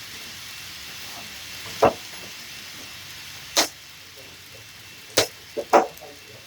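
N gauge model train running on its track: a steady fine rolling hiss, broken by five sharp clicks at uneven intervals, three of them close together near the end.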